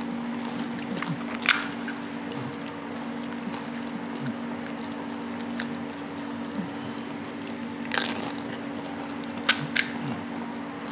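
Crisp pani puri shells cracked open with the fingers and crunched in the mouth: a handful of short, sharp crackles over a steady low hum.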